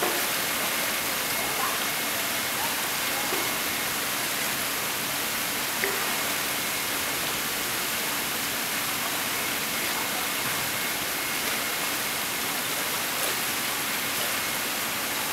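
Steady rush of running pool water, with a few faint knocks, the sharpest about six seconds in.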